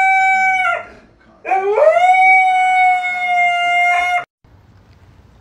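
Husky-type dog howling: one long howl trails off under a second in, then a second howl swoops up in pitch and holds a steady note for nearly three seconds before stopping.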